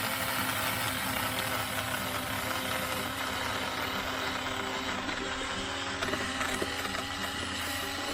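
Tingmengte 8-inch cordless mini chainsaw running steadily, its chain cutting through small wood, with a few brief clicks in the second half.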